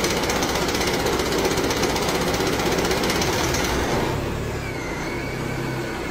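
A fast, steady mechanical rattle, like a jackhammer, that drops a little in level about four seconds in and cuts off abruptly at the end.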